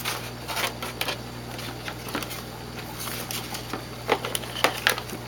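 Cardboard rustling and light plastic clicks and knocks, irregular and close, as a black plastic algae scrubber unit with its coiled power cord is lifted out of a cardboard box.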